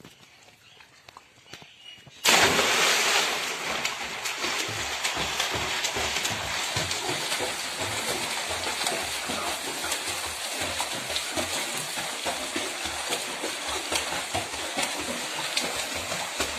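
A boy jumping into a pool of water with a sudden loud splash about two seconds in, followed by continuous splashing from his swimming strokes and kicks.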